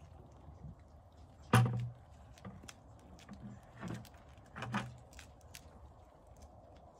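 A goat nosing into a plastic bucket and knocking it, making three hollow thumps: the loudest about a second and a half in, two softer ones around four and five seconds in.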